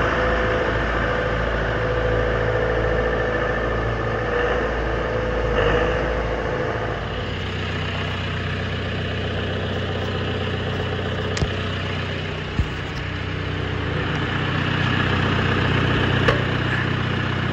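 John Deere tractor's diesel engine running steadily, its low tone changing about seven seconds in. Three sharp metal clanks in the second half come from the front loader's quick-attach as the bucket is put on in place of the bale spear.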